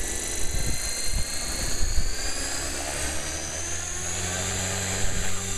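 Compass Atom 500 electric radio-controlled helicopter spooling up on the ground: a high motor and gear whine rising slowly in pitch, with a steady low rotor hum joining about halfway through.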